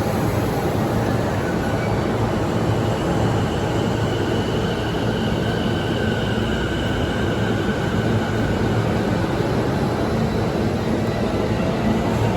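Train running on the rails: a steady rumble of wheels and running gear, with a faint high whine drifting slightly in pitch.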